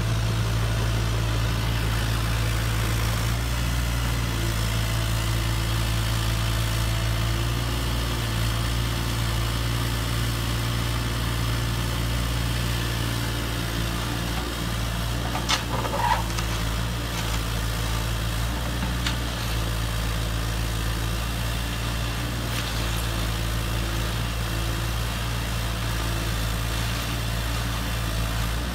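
Heavy engine idling steadily with a low, even hum, the engine sound that goes with the toy cable excavator and dump truck at work. A short sharp knock about halfway through.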